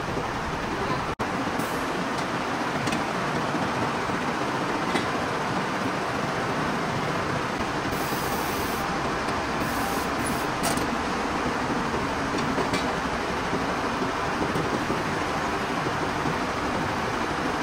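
Steady mechanical din of cotton-spinning mill machinery running, with light clicks here and there; the sound drops out for an instant about a second in.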